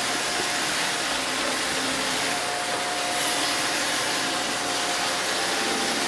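iRobot Roomba robot vacuum running as it moves across a hardwood floor: a steady hiss from its vacuum motor and brushes, with a faint steady high tone.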